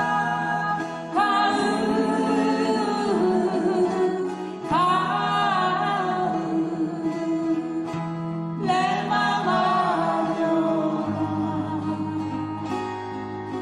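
Acoustic guitars strummed under sung vocals in a live folk-pop performance, with long held, wavering sung notes about every four seconds.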